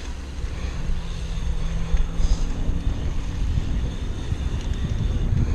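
Wind rumbling over a helmet camera's microphone while riding a BMX bike along a dirt track, with the rolling bike underneath and a faint steady low hum.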